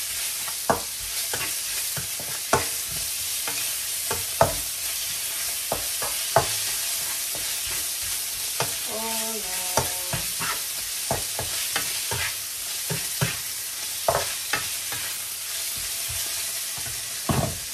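Diced chicken breast sizzling in oil with spice paste in a frying pan, stirred with a spatula that knocks and scrapes against the pan at irregular moments. The chicken is frying to cook it right through. There is one heavier knock near the end.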